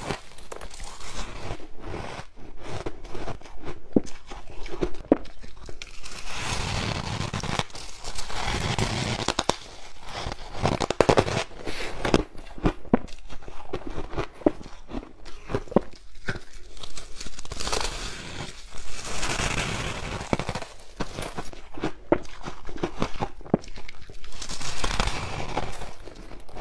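Biting off and chewing mouthfuls of soft, packed freezer frost: repeated squeaky crunching as the frost is bitten and compressed between the teeth.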